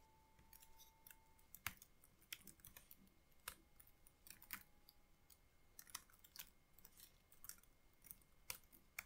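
Faint computer keyboard keystrokes: sparse, irregular single clicks as code is typed, with pauses between them.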